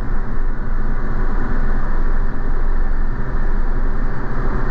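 Diamond DA40's engine and propeller running steadily at takeoff power, heard from inside the cockpit, as the plane rolls and climbs out again after a touch-and-go.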